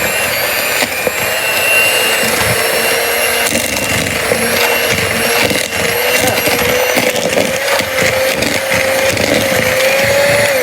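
Electric hand mixer running steadily on butter and sugar in a bowl, its whine rising slightly in pitch, with irregular knocks throughout. It is switched off at the very end, the whine falling away.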